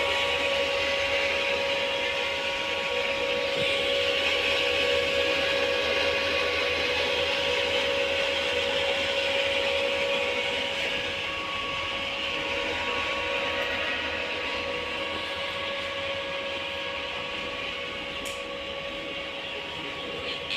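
Incubator fan and motor running with a steady whirring hum and a fixed whine over a hiss, easing slightly about halfway through.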